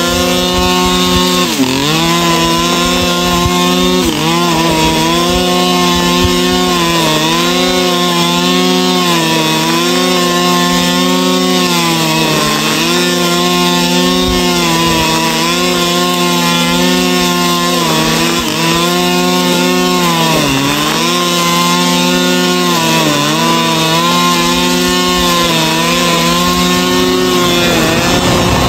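Two-stroke brush cutter with a nylon cord head running near full throttle while cutting grass. The engine note sags briefly every two to three seconds as the spinning cord takes the load of the grass, then climbs back.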